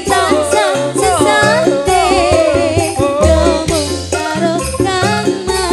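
A woman singing a Javanese campursari song with vibrato, backed by a live band with drum kit and bass.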